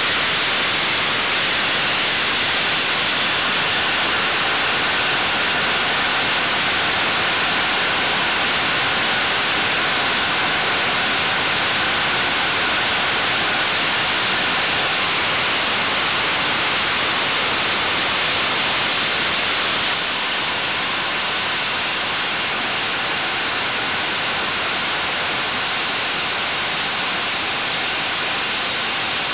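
Jet engine running at steady power, its exhaust blast making a loud, even rushing noise. The level drops slightly about two-thirds of the way through.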